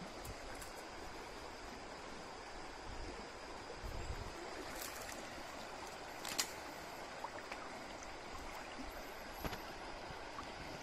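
Shallow stream flowing steadily over its gravel bed, with a few sharp clicks, the loudest a little past the middle.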